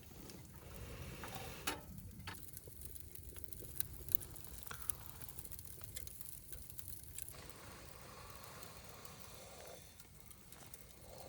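Wood fire burning in a secondary-combustion fire pit, crackling steadily, with a few sharp pops in the first five seconds.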